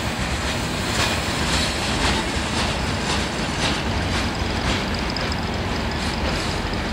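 Freight cars of a passing mixed freight train rolling by at steady speed, with a continuous rumble and wheels clicking over rail joints about twice a second. A faint high steady tone joins about four seconds in.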